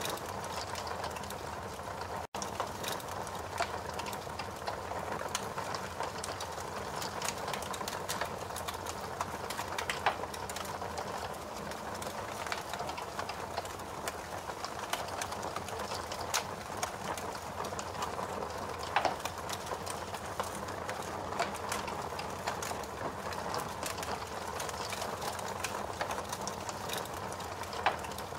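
Fire crackling: a steady rushing hiss with scattered sharp pops and snaps, a few louder ones standing out. The sound drops out for an instant about two seconds in.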